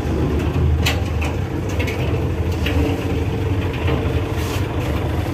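Isuzu Gigamax truck's 6WF1 six-cylinder diesel engine idling with a steady low rumble, with a few light clicks over it.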